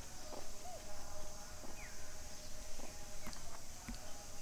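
Outdoor forest ambience: a steady high hiss with a few short gliding chirps and scattered light clicks.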